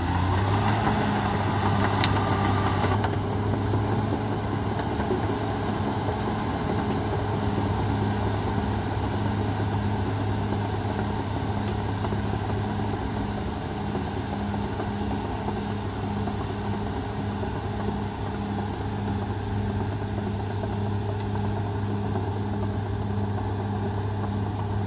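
Caterpillar D6R XL bulldozer's diesel engine running at a steady speed. There is rougher noise over the first three seconds, then an even drone with a faint regular pulse.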